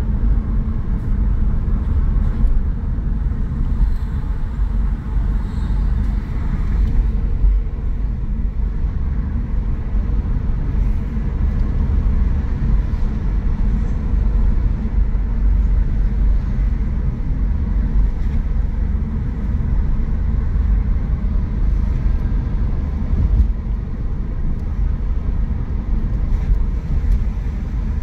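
Steady low rumble of a car on the move: engine and tyre noise on the road, unchanging throughout.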